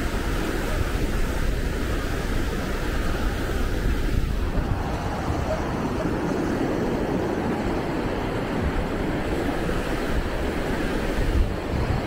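Wind rumbling on the microphone over the steady wash of ocean surf.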